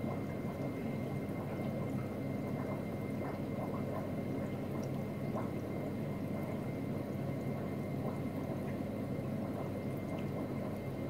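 Steady trickling and gurgling of circulating aquarium water, with scattered small drips and a faint steady high tone.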